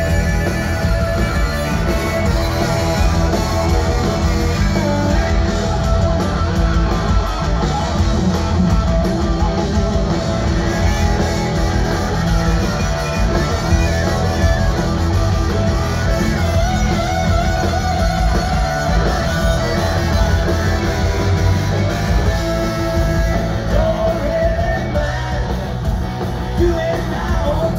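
Rock band playing live: distorted electric guitars and drums, with a harmonica played into the vocal microphone, heard through the club's loud PA from the crowd.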